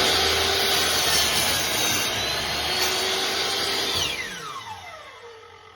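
Metabo HPT 10-inch compound miter saw's 15-amp motor running at full speed with a high whine while the blade cuts through a 4x4. About four seconds in it is switched off and the whine falls steadily as the blade spins down.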